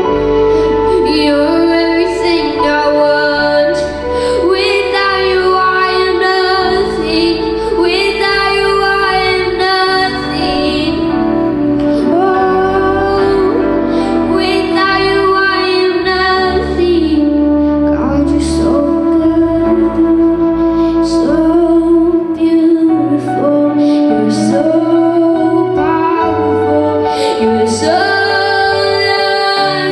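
A worship song: a woman singing a melody over instrumental backing with a steady bass.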